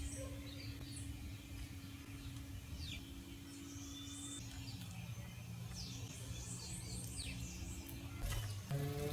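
Wild birds giving short high chirps and quick down-slurred calls now and then over a steady low hum, with a few clicks near the end.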